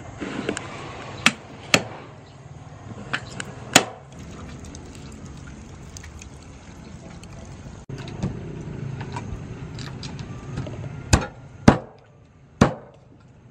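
Lumps of charcoal knocking against each other and the clay stove as they are dropped onto a small fire, a few sharp clacks in the first few seconds. Then a cleaver chopping a whole chicken on a wooden chopping block, three heavy chops near the end.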